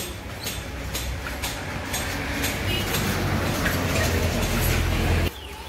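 Light clicks and taps of a screwdriver working on a motorcycle's handlebar front brake master cylinder and lever, under a low rumble that grows steadily louder and cuts off abruptly near the end.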